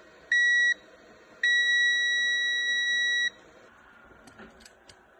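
Continuity beeper of a Parkside digital multimeter sounding as the probes touch both ends of a freshly soldered, heat-shrunk wire. There is one short high beep, then a steady beep of about two seconds, showing that the repaired joint conducts.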